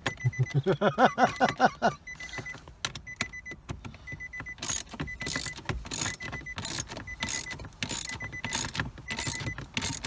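Ratchet wrench being cranked in quick back-and-forth strokes, each stroke a short burst of clicking, about two a second from about halfway in, tightening a bolt on the shifter assembly.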